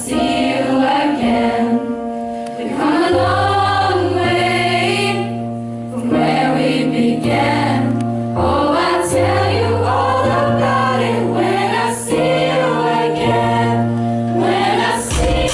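A choir of teenage students singing a song over instrumental accompaniment, with a steady bass line moving in held notes beneath the voices.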